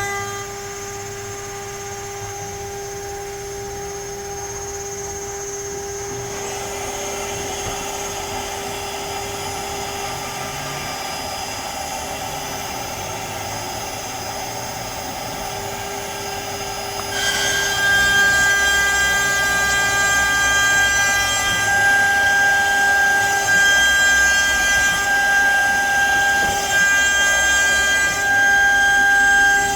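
CNC router spindle and bit cutting into pine: a steady whine over rough cutting noise. It gets louder about six seconds in and again about seventeen seconds in.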